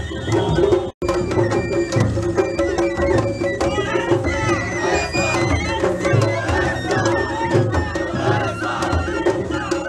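Japanese festival-float music: a taiko drum on the float beating a steady rhythm under a held piping tone from a fue flute, with a crowd of pullers shouting as they haul the float up the slope. The sound cuts out for an instant about a second in.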